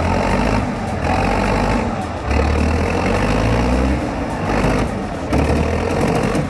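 Tractor engine working hard under load, its pitch rising and falling, typical of a plow digging too deep.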